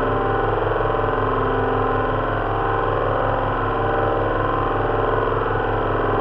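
Simulated drone of four Rolls-Royce Merlin V12 engines running together at steady high power, the layered engine notes beating against one another with a fast even throb, and fan-heater noise mixed in for the propellers.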